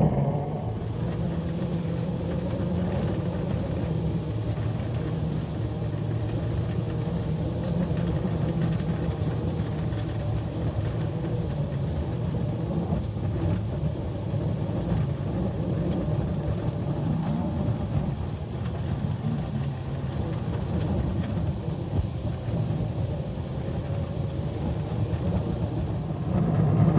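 A scale locomotive running steadily under heavy load as it pushes a Russell snowplow into deep snow, its traction motors hard-worked and running hot, the kind of load that burns up traction motors.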